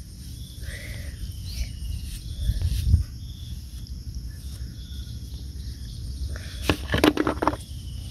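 Hands digging and scooping in wet sand, with squelching and scraping, loudest in a cluster of scrapes about seven seconds in. A low rumble runs underneath, and faint chirps come now and then.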